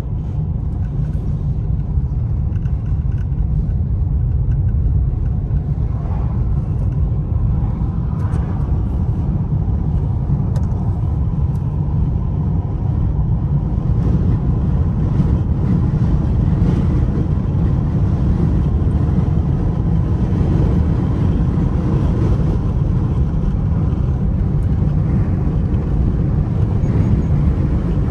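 Steady low rumble of a car driving, heard from inside the cabin: road and tyre noise with the engine underneath.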